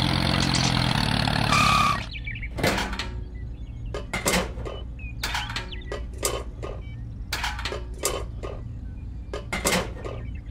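A small motor runs steadily for about two seconds and then stops. A series of light clinks and taps follows as small tin buckets and plastic parts are set down by hand on a toy trailer.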